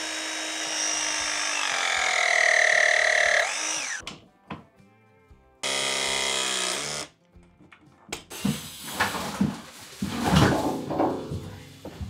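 Power drill running in two bursts: the first about three and a half seconds long, its whine rising in pitch before it stops; the second shorter, two seconds later. Scattered knocks and clatter follow.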